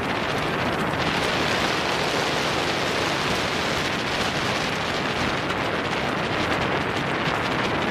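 Steady rushing wind noise on the microphone mixed with road noise, with no distinct hoofbeats standing out.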